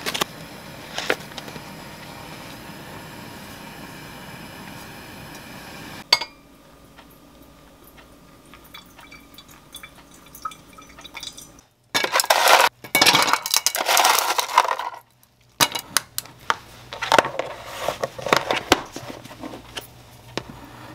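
Pour-over coffee being made: a metal spoon clicks against a paper filter in a ceramic dripper as ground coffee is scooped in, then hot water pours noisily from a stainless kettle for about three seconds midway, followed by scattered clinks and knocks of cups and containers being handled.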